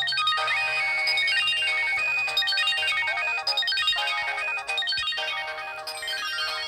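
Samsung GT-E1205T mobile phone playing one of its built-in ringtones: a tune of quick, bright electronic notes, several sounding together.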